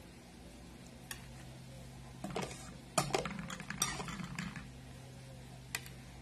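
Table knife clicking and scraping against a serving platter as cake edges are trimmed: a few scattered clicks, a sharp click about halfway through followed by a second or so of scraping, and one more click near the end.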